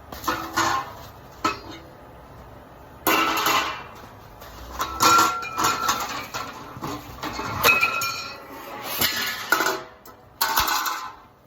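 Metal display-rack parts clanking and clinking as they are handled and fitted together, in irregular bursts of clatter with brief metallic ringing.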